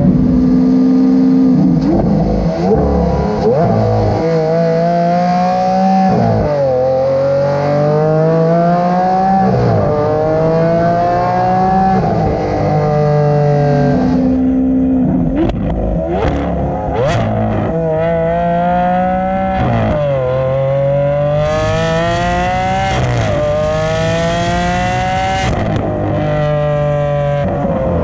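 Straight-piped 2016 Lamborghini Aventador SV V12, with titanium test pipes and straight pipes, accelerating hard: the engine note climbs for a second or two, then drops sharply at each upshift, over and over. Short steadier stretches come between the pulls.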